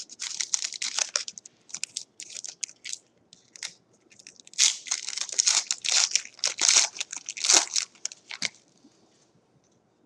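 Wrapper of a 2018 Panini Elite football card pack crinkling and tearing as it is ripped open by hand. The crackling comes in a quick run that is loudest past the middle and dies away over the last second and a half.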